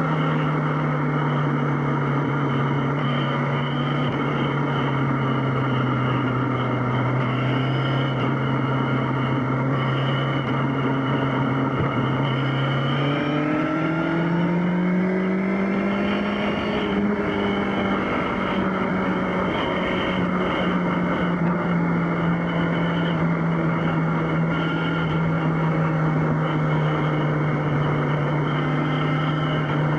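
Yamaha XJ6's inline-four engine running steadily at cruising revs over a constant rush of wind, rising in pitch a little before halfway as the throttle opens, then holding steady at slightly higher revs.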